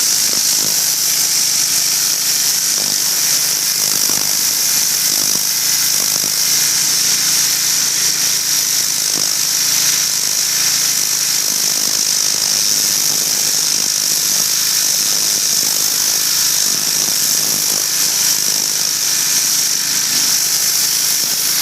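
Pressure washer fitted with a turbo nozzle, spraying a jet of water onto wooden deck boards to strip mildew: a loud, steady hiss.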